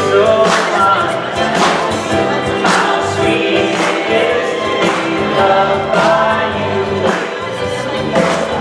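Music with singing voices and a steady beat.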